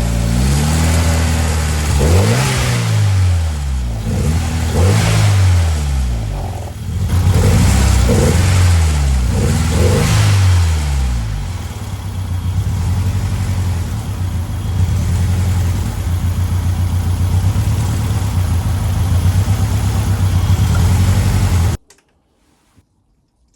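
Ford Escort RS Cosworth's 2.0-litre turbocharged four-cylinder engine revved in about four blips, then held at a steady idle, cutting off abruptly near the end.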